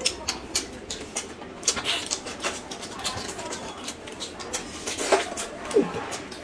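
Close-up eating sounds: chewing and wet lip-smacking with many small crackling clicks, and a short falling tone near the end.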